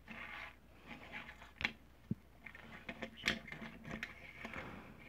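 Lightning McQueen toy car handled on a wooden tabletop: light scraping with a few sharp clicks as it is moved and picked up.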